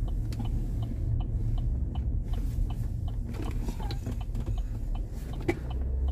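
Steady low rumble of a car cabin while driving, with light ticking about three times a second and one sharper click near the end.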